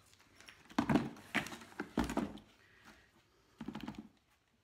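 A few short knocks and rustles of things being handled on a tabletop, with a heavier low thump about two seconds in.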